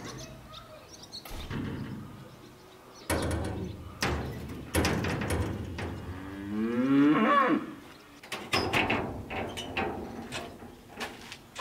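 A cow mooing once, a long call of about a second and a half, about six seconds in. Short knocks and clatter come before and after it, including the clank of a sheet-metal gate being opened.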